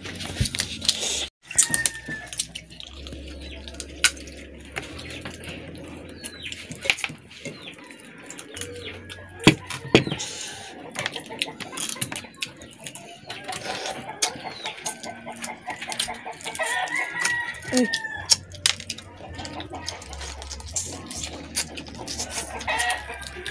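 Chickens clucking and a rooster crowing, over repeated sharp clicks and cracks of boiled crab shells being broken apart by hand and eaten.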